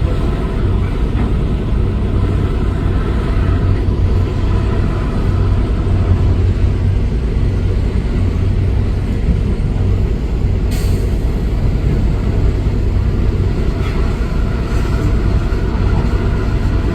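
Heavy diesel engine of earthmoving machinery running steadily with a low drone, with a brief sharp hiss about eleven seconds in.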